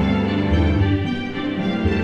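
Background music: held orchestral string notes over a low bass line that moves to a new note every half second or so.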